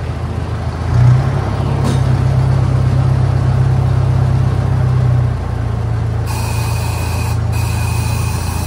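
Miniature park train's locomotive engine running with a deep steady hum, revving up about a second in as the train pulls away and easing back about five seconds in. Near the end a high steady tone sounds twice, the second time longer.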